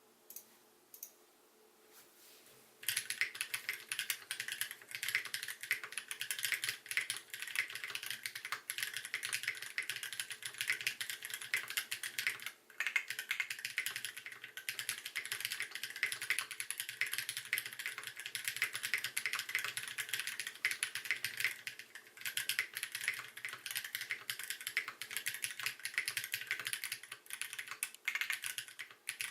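Fast, continuous typing on a custom mechanical keyboard: lubed Holy Gsus tactile switches on an aluminum plate in a Groda-T tray case, with OG Cherry doubleshot keycaps. The typing starts about three seconds in, with a couple of brief pauses.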